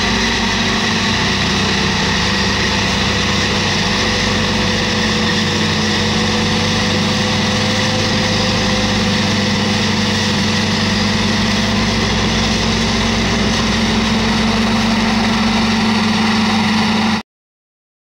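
John Deere 7950 self-propelled forage harvester running steadily at work, chopping corn and blowing silage through its spout into a truck driving alongside. The sound cuts off suddenly near the end.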